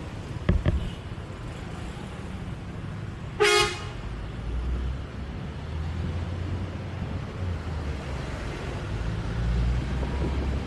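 A vehicle horn gives one short single-note toot about three and a half seconds in, over a low engine rumble that swells toward the end. There is a brief thump just after the start.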